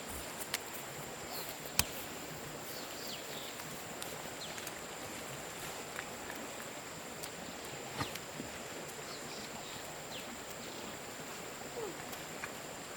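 Outdoor ambience: a steady background hiss with a constant high thin whine, a few faint short chirps, and now and then a sharp click or knock, clearest about two seconds in and again about eight seconds in.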